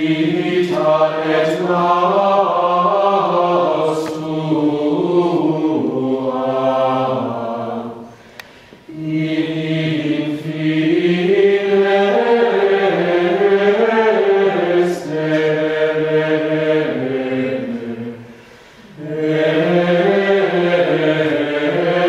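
Choir singing Latin plainchant in unison: one smoothly moving melodic line in three long phrases, broken twice by short pauses for breath.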